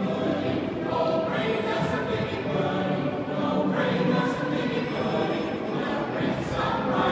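Mixed choir of men's and women's voices singing a Christmas song in held chords.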